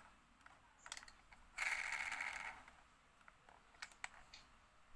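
Plastic toy train being handled in the hands: a few light clicks and knocks, with a brief scraping rustle about a second and a half in that lasts about a second.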